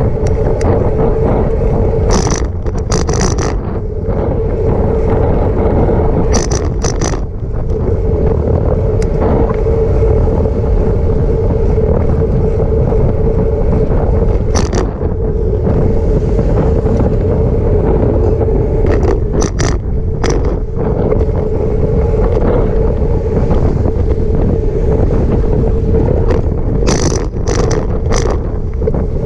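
Wind rushing over the microphone of a camera on a moving bicycle, with a steady hum underneath. Short rattling crackles break in a few times.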